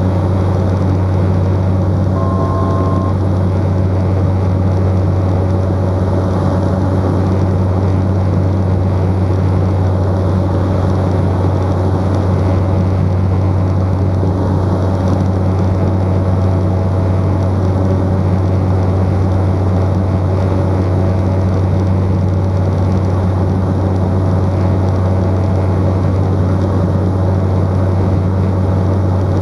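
Cessna 208 Caravan's PT6A turboprop engine and propeller in flight, heard from inside the cockpit as a loud, steady low drone.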